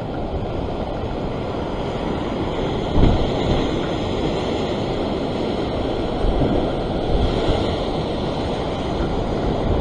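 Ocean surf breaking and washing over a rock ledge, with wind buffeting the microphone in low rumbling gusts, the strongest about three seconds in.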